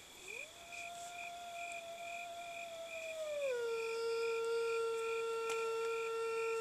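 A person imitating a wolf howl through cupped hands, as done in wolf surveys to draw a reply from wolves: one long howl that rises quickly, holds, then slides down to a lower pitch about three and a half seconds in and holds there.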